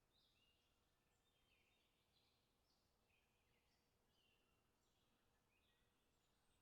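Songbirds singing very faintly, several overlapping short phrases of high chirps following one after another, over a faint steady hiss.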